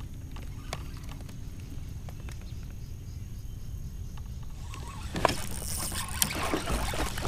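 A low steady rumble with faint ticks, then from about five seconds in a hooked fish splashing and thrashing at the water's surface as it is reeled in beside the kayak.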